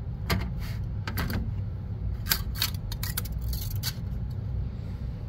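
A 3D-printed carbon-fibre PLA part being handled and pulled off a textured steel build plate: a quick run of about a dozen plastic clicks and knocks in the first four seconds, then quieter, over a steady low hum.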